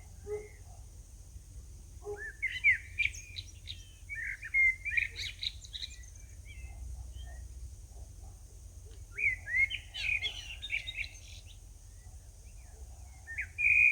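Songbirds singing in several bursts of quick, chirping phrases, over a low steady rumble.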